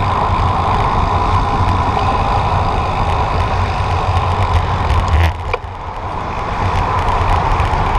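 Steady wind rush and road rumble on the microphone of a cyclist riding along a road, with a short knock a little past five seconds after which the noise briefly drops and then builds again.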